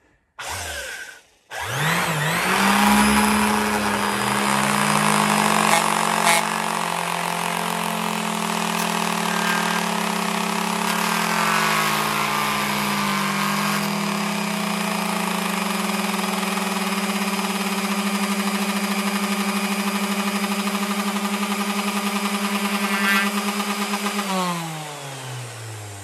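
Electric random orbital sander switched on and spinning up, running steadily while sanding a wooden knife handle, with a brief dip in pitch about halfway through. It is switched off and winds down near the end.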